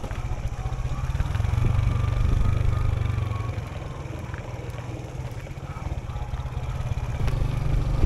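Motorbike engine running under way, rising in level a couple of seconds in and then easing off.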